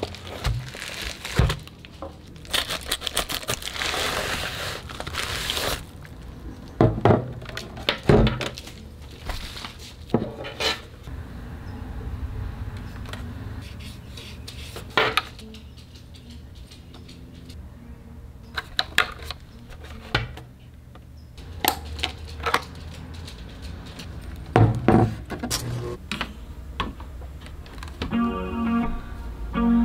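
Unboxing handling sounds: plastic bubble wrap crinkling for a few seconds, then scattered clicks and knocks as a white plastic CD player is handled. Guitar music comes in near the end.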